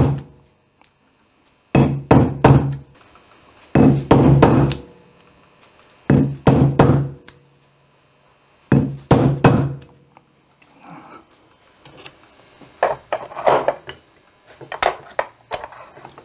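Wooden mallet striking a steel hole punch through leather resting on a stone block: four bursts of several quick blows, each burst about two to three seconds apart. Lighter clicks and knocks follow in the last few seconds.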